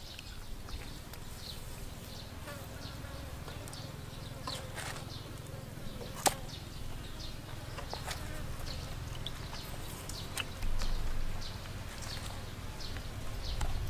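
Flies buzzing steadily, with scattered small clicks, scrapes and wet tearing as a knife cuts into a raw shark and hands pull its belly open. A sharp click comes about six seconds in, and a louder stretch of handling comes near the end.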